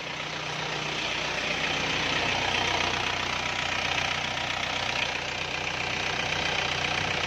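Car engine idling steadily just after starting. The starter, which had only clicked, now works with its loose-contact wiring cleaned.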